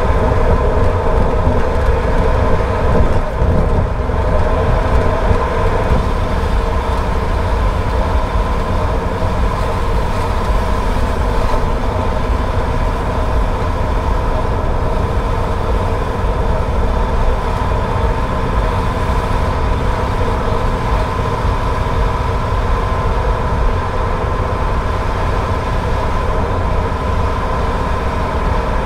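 Car driving at a steady speed: a deep road rumble under an unchanging engine and tyre drone.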